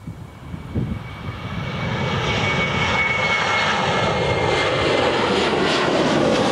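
Boeing 737 jet engines at takeoff thrust as the airliner accelerates down the runway. The noise swells over the first couple of seconds, then holds loud and steady, with a thin high whine in the middle.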